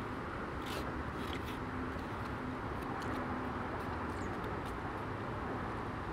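Steady outdoor city background with a distant traffic hum, and a few faint clicks of a plastic fork against a foam takeout container about a second in.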